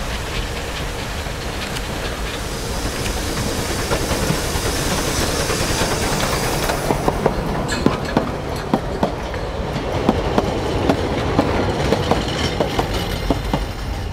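A 600 mm narrow-gauge train hauled by a 1951 LOWA 50PS steam locomotive rolling past, its open carriages' wheels clicking and clattering over the rail joints from about halfway through.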